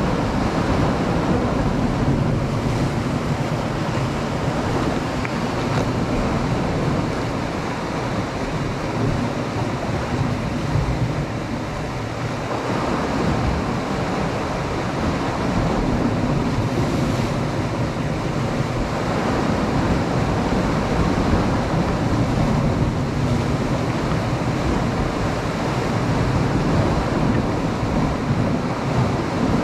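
Sea waves washing against a rocky shore, a steady rushing that swells and eases, with wind buffeting the microphone.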